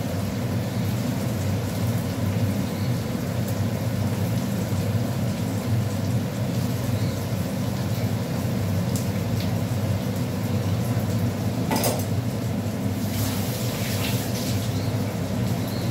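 Onion and tomato frying in oil in a pan, a steady sizzle over a steady low hum, with a sharp utensil knock about twelve seconds in and a few lighter clinks after it.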